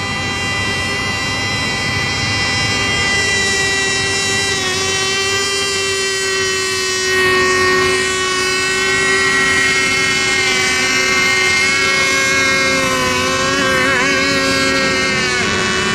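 Several radio-controlled racing boats' motors whining at high revs out on the water, their pitches wavering a little as they turn. The sound grows louder over the first few seconds.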